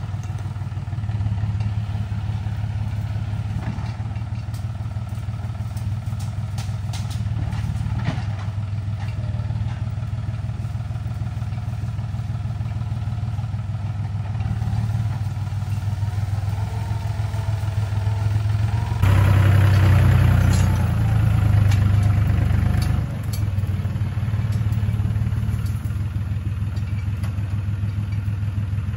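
John Deere 5300 tractor's three-cylinder diesel engine running steadily while its front-loader grapple works into shrubs, with scattered cracks and clatter from branches. About two-thirds of the way through, the engine suddenly sounds louder and closer.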